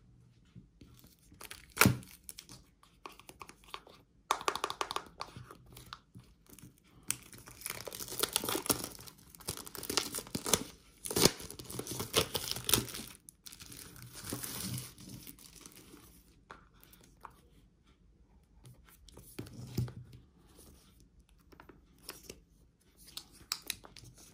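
Clear plastic shrink-wrap being torn and peeled off a cardboard Apple Watch box, crinkling and crackling in irregular bursts, with a few sharp clicks, the loudest about two seconds in.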